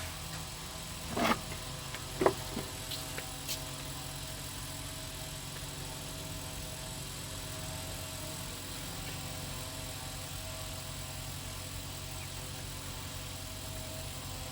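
Steady low machine hum with a few sharp knocks and ticks between one and four seconds in, the loudest two at about one and two seconds.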